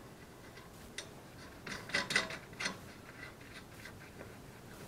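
Clinks, scrapes and a short burst of metallic clanks about two seconds in, from the steel steering knuckle and its hardware being fitted by hand onto the front suspension's lower control arm.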